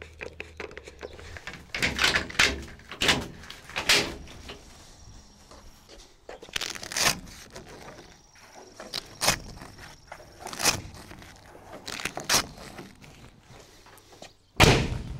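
Truxedo TruXport soft roll-up tonneau cover being latched and seated on its side rails: a string of sharp knocks and clacks, one every second or two, with one heavy thump near the end.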